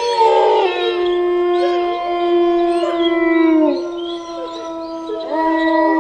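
Several canines howling together in long, held notes at different pitches. The notes sag and die away a little under four seconds in, and the howling starts up again about five seconds in.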